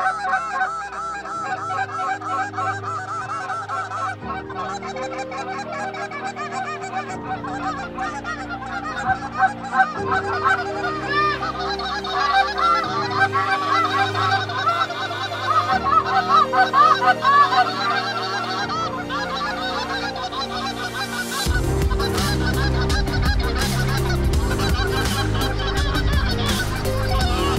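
A large flock of Canada geese honking overhead, many calls overlapping throughout. Low steady notes sit underneath, and a louder rough rushing noise with rapid clicks comes in about three-quarters of the way through.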